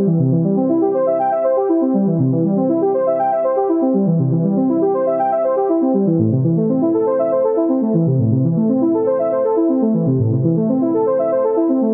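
Instrumental music opening a song, with no vocals yet: a repeating figure of notes that runs down and back up about every two seconds.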